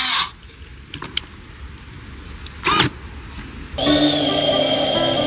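Electric retractable landing gear of a large RC model plane whirring and stopping just after the start, followed by a quiet stretch with a couple of light clicks and a short swoosh about halfway through. Background music with pitched notes starts about two-thirds of the way in.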